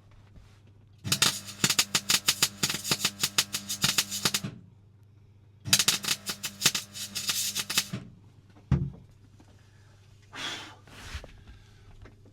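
Electric arc welding crackling in two bursts, the first about three and a half seconds long and the second about two seconds, with a steady electrical hum under them. A single sharp knock follows, then two brief hissing scrapes near the end.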